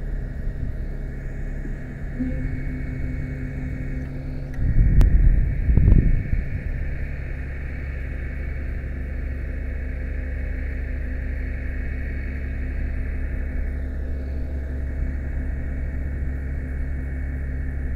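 Fire truck aerial ladder's hydraulics working as the ladder is raised and rotated: a steady mechanical drone with a high whine. A louder low rumble with a sharp click comes about five seconds in, and the whine drops back a little about three-quarters of the way through.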